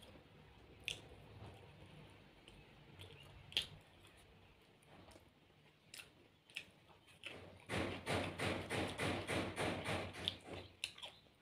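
Close-miked mouth sounds of a person eating with her fingers: a few scattered lip smacks and clicks, then, about eight seconds in, a rapid run of wet chewing smacks lasting about three seconds.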